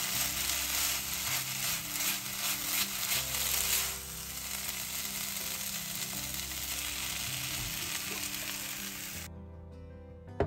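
Grated apple filling sizzling as it fries in butter and sugar in a nonstick pan, stirred with a silicone spatula. The sizzle is louder for the first few seconds, then quieter and steady, and stops suddenly near the end.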